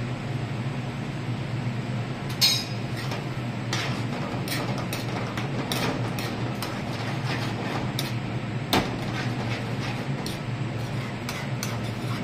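Metal spoon clinking and scraping against a stainless frying pan as a curry is stirred, a dozen or so irregular knocks, one about two and a half seconds in ringing briefly. Under it runs a steady ventilation hum.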